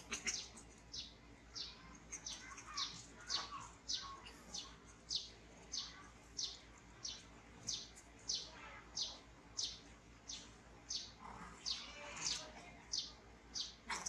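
A bird calling over and over: a short chirp falling in pitch, repeated steadily about twice a second.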